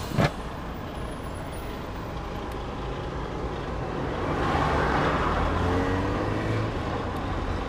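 Low, steady outdoor rumble that swells for a couple of seconds past the middle, like a vehicle going by. The angle grinder in hand is not running: it fails to switch on.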